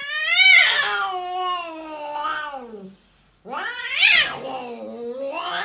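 Cat yowling: two long drawn-out calls, each rising in pitch and then sliding slowly down.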